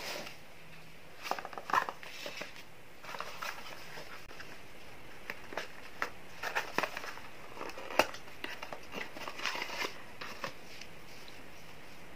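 Light handling of cardboard packaging: scattered taps, clicks and rustling crinkles as a slim cardboard cosmetics box is opened and a foundation tube is slid out. A single sharper tap stands out about eight seconds in.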